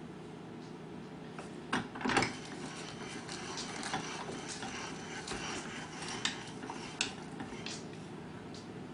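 Kitchen handling noises on a tabletop: scattered clicks and knocks as a small hand juicer and wheatgrass are handled, with a louder double clatter about two seconds in. Light rustling follows, and there are a couple of sharp clicks near the end, over a steady low hum.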